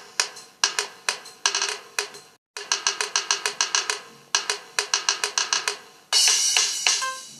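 Old Samsung MIDI ringtone playing from a Nokia 112 phone's loudspeaker: a melody of quick notes, each fading away. It breaks off for a moment about two and a half seconds in, then starts again, and a louder, brighter phrase begins about six seconds in.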